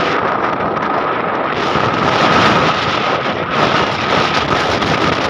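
Sandstorm wind buffeting a phone microphone: a loud, steady rush that swells and eases in gusts, with a thin steady high tone underneath.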